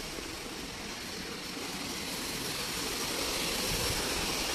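Steady, even hiss of light rain falling.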